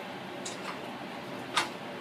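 Metal kitchen tongs clicking against a plate while a cooked chicken wing is pulled apart: a faint tick, then a sharper click about a second and a half in.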